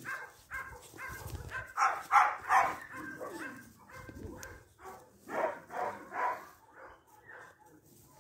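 Puppies barking in a run of short, high yips, loudest in clusters about two seconds in and again around five to six seconds in.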